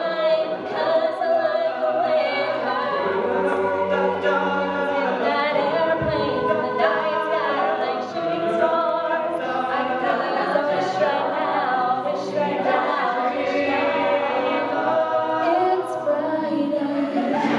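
Mixed-voice a cappella group singing a pop mash-up, the group's stacked backing harmonies under a female lead voice, with no instruments.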